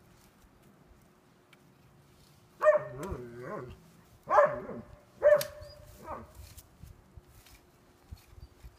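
A German Shepherd barking about five times, a second or so apart, starting a few seconds in.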